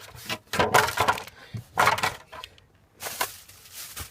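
Hands rummaging through the wiring and plastic trim behind a car stereo: three short rustling, clattering bursts about a second apart.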